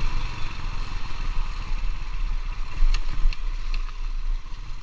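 Motor scooter running at low speed, heard from the rider's seat, with a low, uneven rumble. A few light clicks come about three seconds in.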